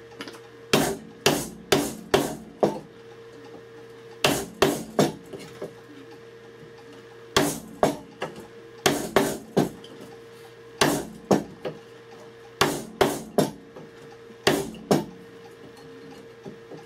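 Hammer blows on a wooden-handled chisel cutting a mortise into a hardwood stool seat, in quick bursts of three to five strikes with short pauses between. The chisel is driven straight down to sever the wood across the grain.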